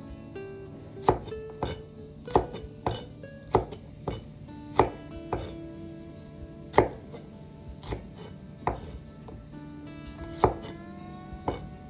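Knife chopping food on a cutting board: about a dozen sharp, unevenly spaced chops, roughly one a second. Soft background music with plucked-string tones plays underneath.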